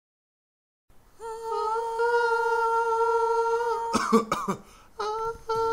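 A voice holds one long, steady hummed note, starting about a second in. About four seconds in it breaks into a short rough cough-like burst, and the note comes back near the end.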